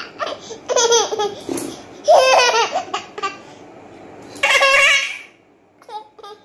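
Toddler girl laughing in three loud bursts about every second and a half, the last the loudest, then a few short, softer sounds near the end.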